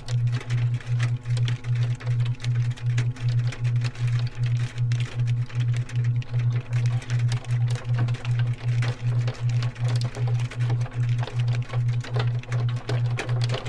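Hail pelting the cabin from outside, a dense, irregular patter of small ticks and clicks, over a loud low hum that pulses evenly about three times a second.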